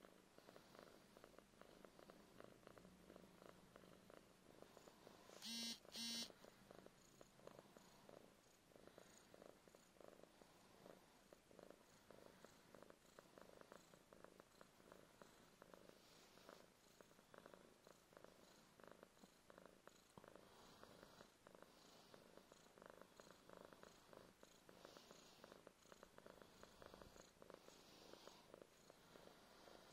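Domestic cat purring faintly and steadily in rapid pulses while being massaged, a sign of contentment. About six seconds in, two short beeps sound, louder than the purr.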